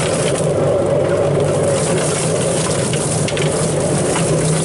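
Electric drum-type chicken plucker running with a steady motor hum while a chicken is turned against its spinning rubber fingers, with scattered light knocks.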